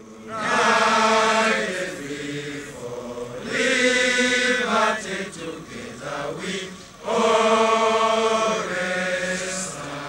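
Ugandan soldiers singing together as a large group of men's voices in unison, in long drawn-out phrases that swell loud three times a few seconds apart.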